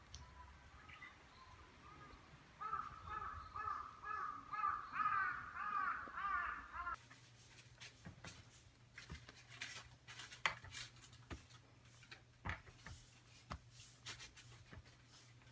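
A crow cawing over and over in a quick run of calls for about four seconds. Then a series of light taps and sharp knocks as red seal stamps are picked up and pressed onto the pages of a pilgrim's stamp book, with one louder knock partway through.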